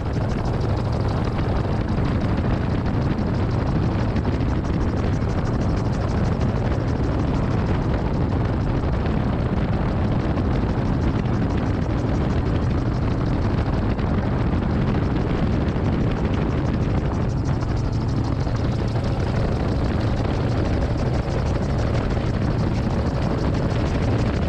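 Titanium Gyro gyroplane in cruising flight, heard from its cockpit: a steady drone of engine and rotor mixed with rushing wind noise, even throughout.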